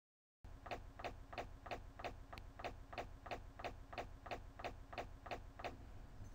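Clock-ticking sound effect: an even run of sharp ticks, about three a second, over a low hum, starting about half a second in and cutting off suddenly near the end.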